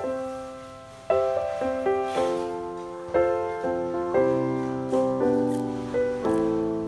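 Solo piano music, with notes and chords struck about once a second and each one ringing and fading before the next.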